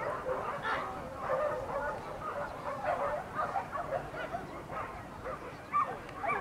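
A pack of hunting dogs yelping and barking, many short high calls overlapping without a break: dogs giving tongue on a wild-boar chase.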